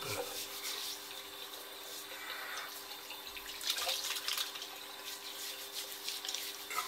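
Tap running into a bathroom sink while water is splashed onto the face with cupped hands, with a cluster of splashes about halfway through.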